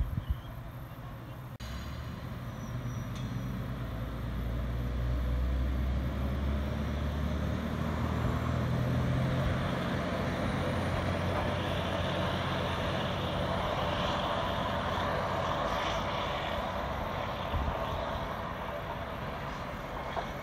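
Matsuura Railway single-car diesel railcar pulling away: its engine comes up to power suddenly about a second and a half in and runs with a loud, steady low hum as the car accelerates away, a faint rising whine and wheel-on-rail noise building in the middle and easing slightly near the end.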